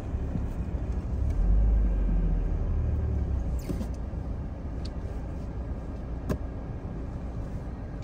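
Car driving, with a low rumble of engine and road noise heard from inside the cabin that swells for about two seconds starting a second and a half in. A single sharp click comes near the end.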